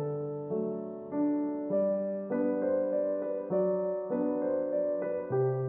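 Soft background keyboard music, with a new piano chord struck about every half second.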